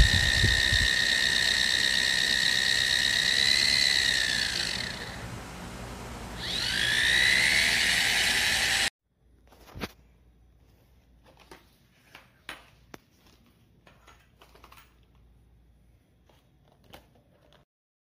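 Mini turbo washing machine's small electric motor spinning fast with a steady high whine. About four seconds in it slows and the whine falls away, then it speeds back up, and it stops suddenly about nine seconds in. After that there are only faint clicks and taps of handling.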